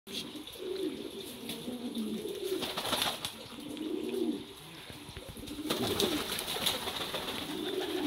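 Reversewing Pouter pigeons cooing: a run of low, warbling coos, one after another.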